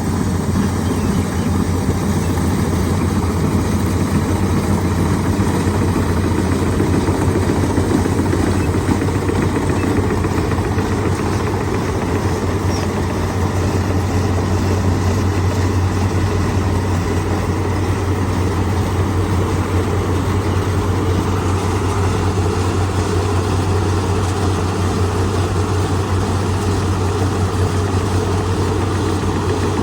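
An engine running steadily at a constant speed, a low drone with mechanical noise over it and no revving or change.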